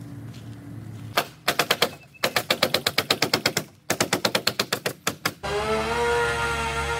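Pneumatic nail gun firing rapidly into OSB wall sheathing, about seven shots a second in several quick runs. A little after five seconds in, this cuts to a steady motor drone.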